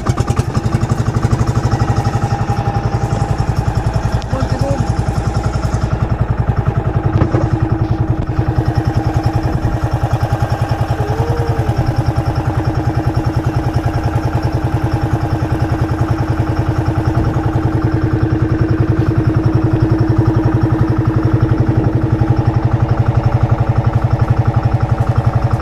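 Small boat engine running steadily, with a fast, even beat of firing strokes.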